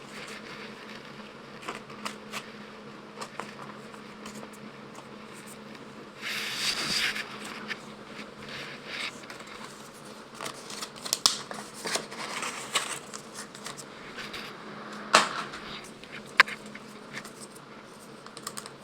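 Pokémon trading cards being handled and flicked through: soft sliding and rustling, with a longer rustle about six seconds in and a couple of sharp taps near the end, over a faint steady hum.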